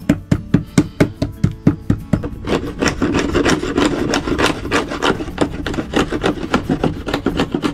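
Steel wood chisel worked by hand across saw kerfs in a softwood board, scraping and chipping out the waste to form a groove. Short sharp strokes come about four a second at first, then thicken into a faster run of scraping strokes from about two and a half seconds in.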